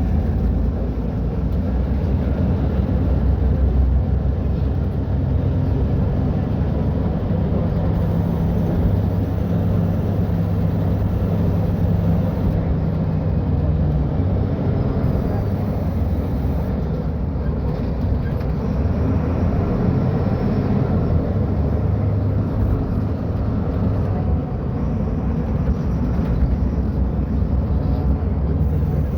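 Diesel engine of a Mercedes-Benz O500U city bus with a Voith automatic gearbox, running steadily under way. The engine note shifts in pitch a few times as the bus changes speed.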